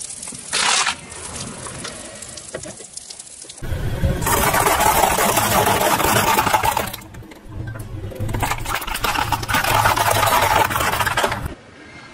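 A car's tyre rolling over and crushing objects, crackling and crunching, with the car's engine running under it. This comes in two long stretches with a short lull between them, after a brief loud noise about half a second in.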